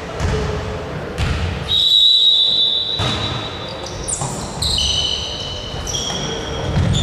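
Basketball game in a gym: a ball bouncing on the court about once a second, with long high squeaks from players' shoes on the floor overlapping from about two seconds in.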